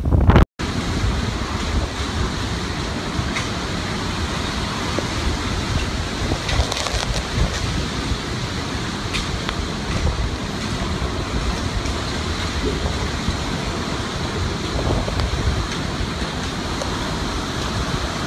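Hurricane Irma's wind and heavy rain, a steady rushing noise with the wind buffeting the microphone. A brief dropout about half a second in, then the storm noise runs on evenly.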